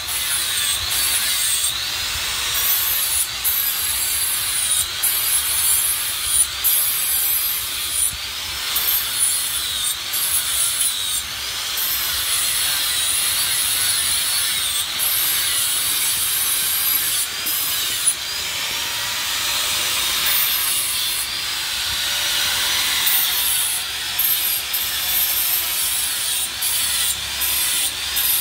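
Handheld electric angle grinder sharpening the edge of a steel knife blade. The abrasive disc rasps continuously on the metal, with a high whine that wavers up and down as the pressure on the blade changes.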